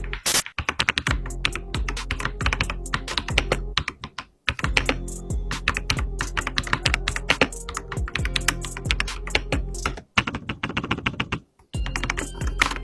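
Rapid typing on a Noir 65% mechanical keyboard: a dense run of keystroke clicks, broken by a few short pauses.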